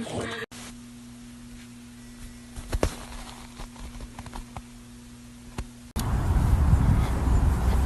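A quiet steady hum with a few soft clicks and crackles. About six seconds in it gives way abruptly to loud, even rumbling noise like wind buffeting a phone microphone outdoors.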